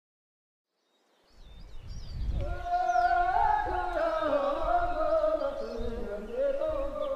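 A single voice singing a slow, ornamented song with cuckoo lyrics, held on long wavering high notes. It comes in out of silence about a second in, over a low rumble.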